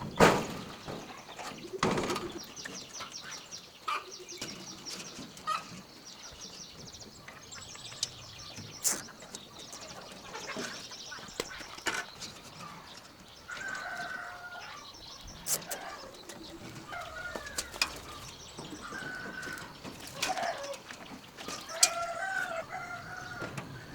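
Chickens clucking and squawking, with bursts of wing flapping and scattered sharp knocks as the birds are handled. The calls come more often in the second half.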